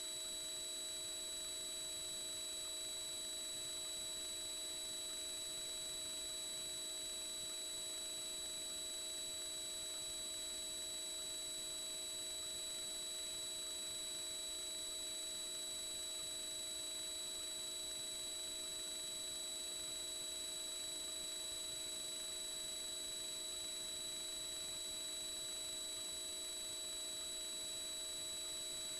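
Steady electronic whine: several constant high and mid tones over a faint hiss, unchanging throughout.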